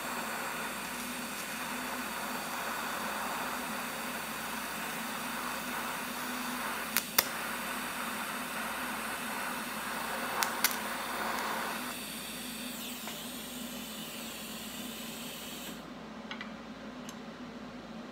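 TIG welder arc hissing steadily on aluminium with the machine left in DC mode instead of AC, the cause of poor welds. Two pairs of sharp clicks come about seven and ten and a half seconds in; the arc stops about twelve seconds in, and a fainter hiss cuts off suddenly a few seconds later.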